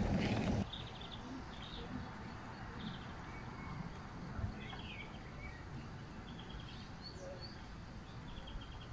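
Small songbirds chirping faintly in short, high trills over a quiet outdoor background. A louder crackling noise at the very start stops abruptly about half a second in.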